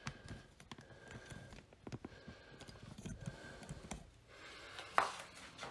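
Scattered light clicks and rattles of cable-machine hardware being handled, with one sharper click about five seconds in.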